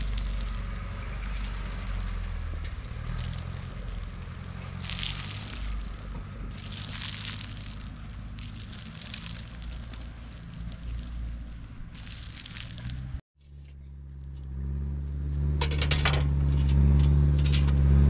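An engine running steadily, with short bursts of hiss over it. An abrupt cut comes about thirteen seconds in, after which the engine is louder.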